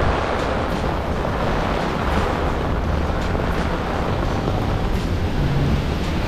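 Heavy rain falling on an umbrella overhead and on the wet street, a steady wash of noise with faint drop ticks, while wind rumbles on the microphone.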